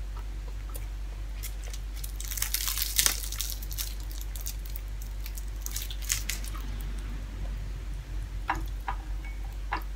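Crisp fried dried milkfish (daing na bangus) being torn apart by hand, crackling about two to three seconds in and again around six seconds, with a few small clicks near the end.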